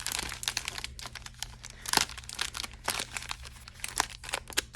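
Foil wrappers of hockey trading-card packs crinkling as the packs are shuffled in the hands: a steady run of irregular crackles, with one louder crackle about two seconds in.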